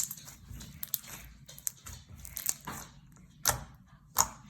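Clear slime being pressed and poked by hand, giving irregular sharp clicks and crackling pops, roughly one a second, as trapped air pops out of it.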